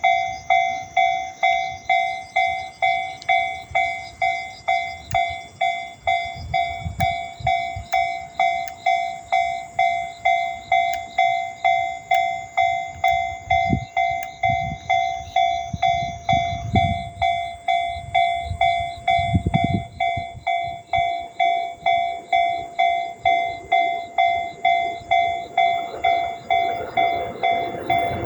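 Japanese railway level-crossing warning bell ringing, a rapid, regular electronic 'kan-kan' of a little under two strikes a second. Low rumbles come and go in the middle, and a broader rushing noise builds near the end.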